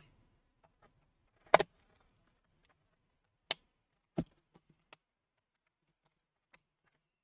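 Handling noise from a laptop being shifted and pressed on a table: a sharp double knock about one and a half seconds in, two more knocks around three and a half and four seconds in, then a couple of faint ticks.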